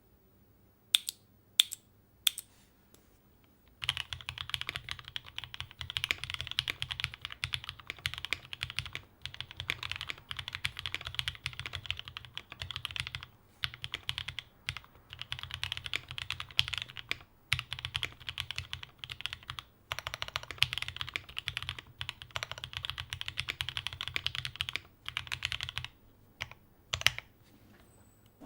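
Typing on a HEX4B plateless custom mechanical keyboard: a few single keystrokes, then fast continuous typing with brief pauses, ending with a couple of last keystrokes.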